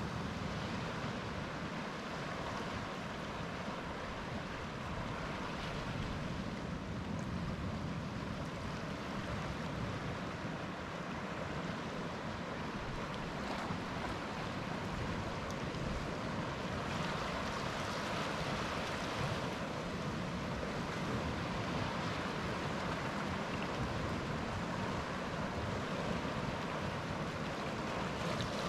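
Celtic Sea surf breaking and washing on the shore: a steady rushing wash that swells and eases with the incoming waves.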